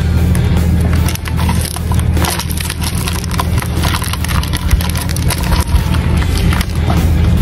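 Close-up scratching and clicking of a Hercules beetle and a Palawan giant stag beetle wrestling on bark, their clawed legs scraping and gripping the wood and their shells knocking, in quick irregular scratches over a steady low hum.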